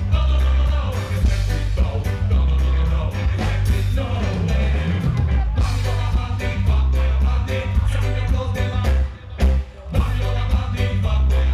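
A live reggae band plays with heavy bass and drums while MCs sing and toast into microphones. The music drops out briefly about nine seconds in, then comes back in.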